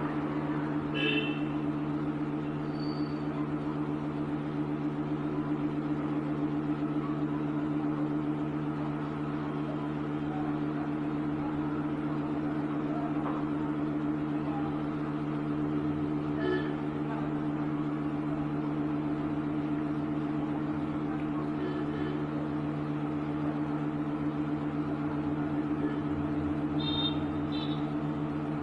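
Steady electric hum, even and unchanging, with a few faint short high chirps dotted through it.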